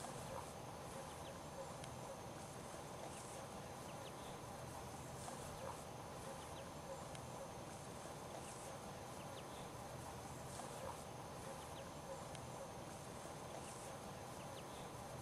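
Faint open-air ambience: a steady background hiss with scattered short, high chirps every couple of seconds.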